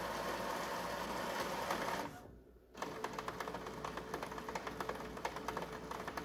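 Epson WorkForce WF-3620 inkjet printer running its print-head cleaning cycle. A steady mechanical whir stops briefly about two seconds in, then gives way to rapid ticking over a steady hum. These sounds are the normal noises of head cleaning.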